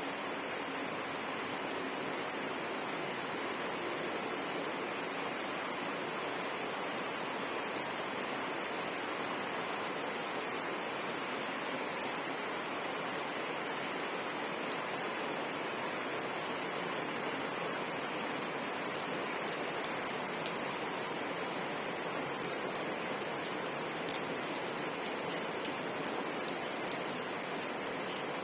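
Steady rain falling, a continuous even hiss with a faint high-pitched band running through it.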